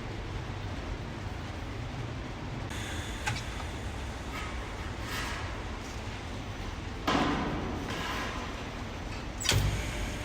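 TIG welding on 1.5 mm stainless steel sheet: a steady low hum and faint hiss from the arc, with a sudden louder surge about seven seconds in that fades away.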